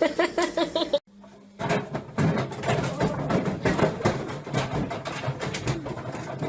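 Washing machine rattling and clattering hard in a dense, continuous run of knocks over a low motor hum, the violent shaking of an unbalanced machine. Before it, in the first second, comes a quick run of short pitched calls.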